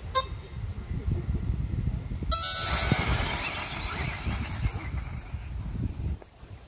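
Race-start beeps from the timing system: a short beep, then a longer tone about two seconds in. Right after it, a pack of 1/10-scale 4WD electric off-road buggies accelerates away, a hiss of motors and tyres on grass and dirt. A low buffeting rumble runs underneath and stops about six seconds in.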